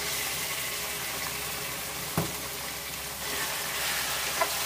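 Marinated pork sizzling in hot cooking oil in a wok with onion and garlic: a steady hiss of frying, with one sharp knock about two seconds in and a light click near the end.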